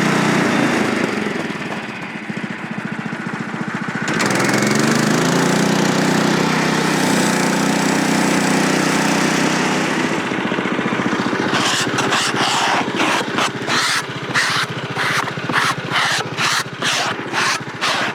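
Gas engine of a portable band sawmill running under load, with a steady hissing cutting noise as the blade goes through a log. The engine sags for a couple of seconds and then picks back up. About ten seconds in the cutting hiss stops, and a run of sharp rhythmic strokes, a little over two a second, sounds over the still-running engine.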